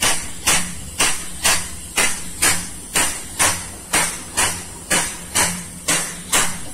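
Air-powered pump vacuuming leftover crude palm oil from a tanker's cargo tank, cycling in a steady beat of about two strokes a second, each stroke a sharp hissing puff of exhausted air. The slow, heavy pace means it is drawing oil rather than running empty.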